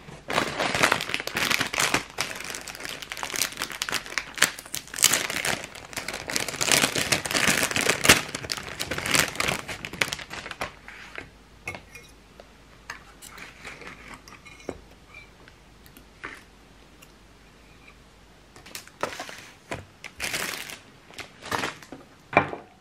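Bakery packaging crinkling and rustling as bread is unwrapped and handled, in dense bursts for about the first ten seconds. Then come a few faint clicks and softer rustles, and another spell of crinkling near the end.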